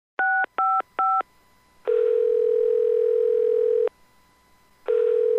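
Telephone call being placed: three short keypad (touch-tone) beeps, then the ringing tone on the line, a steady tone held for about two seconds that stops and starts again about a second later.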